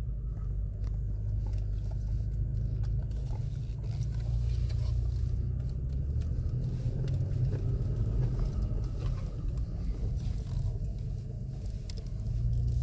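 Toyota Tacoma's engine and drivetrain running at crawling speed over a rough rocky trail, heard from inside the cab as a steady low rumble, with scattered small clicks and knocks.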